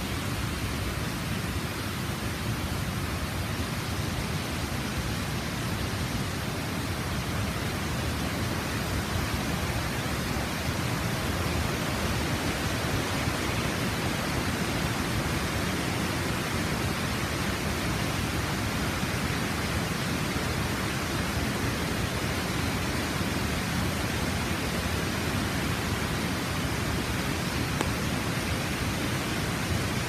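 Steady rushing of white water from a mountain river falling in cascades, growing a little louder after about ten seconds.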